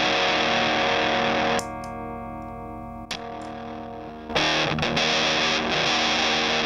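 Electric guitar played through a Soul Bender germanium-transistor fuzz pedal: thick fuzzed chords, then from about a second and a half in a quieter chord ringing out with less fuzz, broken by a brief click. Heavy fuzzed playing comes back a little past four seconds in.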